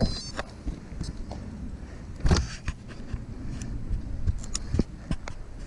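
Bicycle with soft road tar stuck in it, making irregular clicks and knocks over a low rumble, with one heavier thump about two seconds in.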